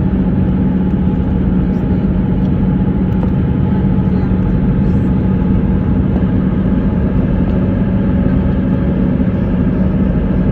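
Steady road and engine noise inside a car cruising at highway speed, with a constant low drone and tyre rumble.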